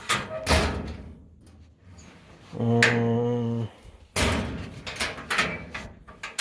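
Rummaging through a storage cupboard: items shifted and clattering, with drawer or cabinet-door handling. About halfway through there is a short steady pitched tone lasting about a second.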